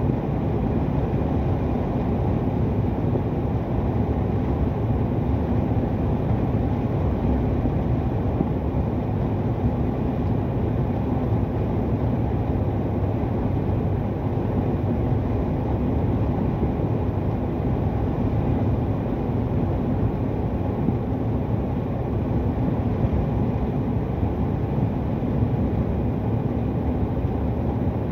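Truck engine and tyre noise heard from inside the cab while cruising on the highway: a steady, even drone.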